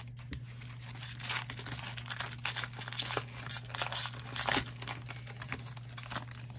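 Foil Pokémon booster pack wrapper being crinkled and torn open: a dense, irregular run of crinkles and rustles over a steady low hum.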